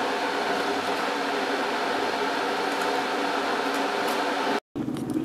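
Electric kettle heating up: a steady rushing noise with a faint hum under it, cutting off abruptly near the end.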